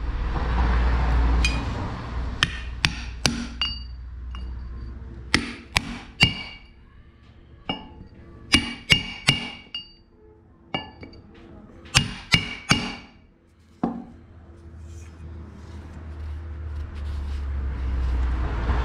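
Hammer blows on metal, about eighteen sharp ringing taps in irregular groups that stop a few seconds before the end, typical of driving a new short-axle oil seal into a Kubota 5040 tractor's front axle housing. A low rumble swells near the start and again near the end.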